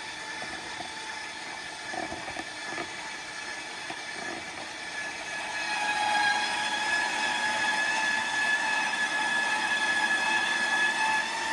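KitchenAid stand mixer running with its grater attachment, shredding a block of frozen cheese: a steady motor whine over a grinding rasp, growing louder about halfway through, with a few light knocks early on from the cheese in the feed tube.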